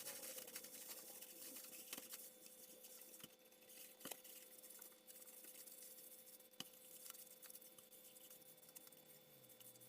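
Near silence: faint room tone with a steady low hum and a few soft, brief ticks.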